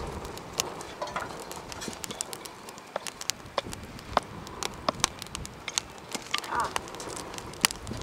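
Wood fire of thin split sticks crackling in a small Lixada folding wood stove, with irregular sharp pops and snaps; the loudest snap comes near the end.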